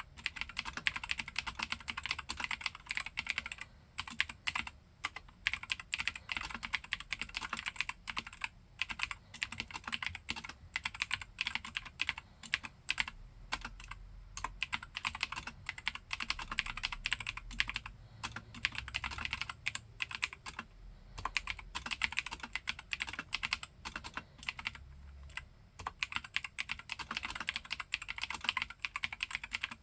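Mechanical keyboard with spray-lubricated Gateron Blue clicky switches being typed on fast and steadily, a dense run of key clicks broken by a few brief pauses.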